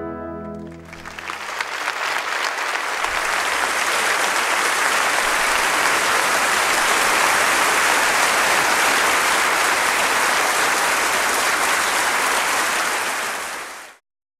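A wind orchestra's final held chord dies away about a second in, and a concert audience breaks into applause that builds over a couple of seconds and then holds steady. The applause drops away sharply near the end.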